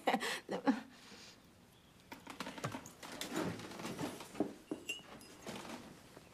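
A few knocks as a person gets up from a seat, then irregular footsteps as she walks away.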